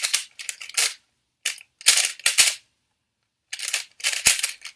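Quick bursts of plastic clicking and clacking from a new magnetic speedcube being turned fast by hand, with short pauses between the runs of turns and the longest pause in the middle.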